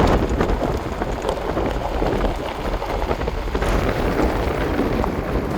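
Wind buffeting the microphone: a steady, loud rumbling roar with no other clear sound.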